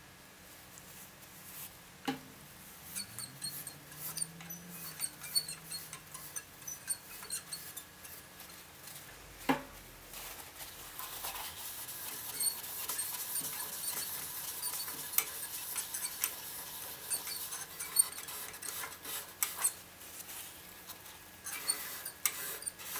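Paper towel rubbing finish onto a turned apple wood pot: soft rustling and scattered small clicks, then a steadier hissing rub from about ten seconds in.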